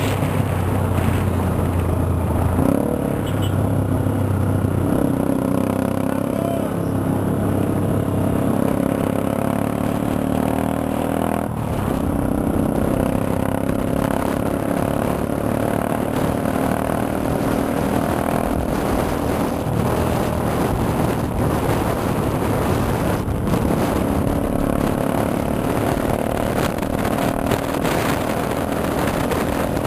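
Motorcycle engine running under way, heard from the bike itself. Its note is steady but steps in pitch a few times, with a brief dip about eleven seconds in.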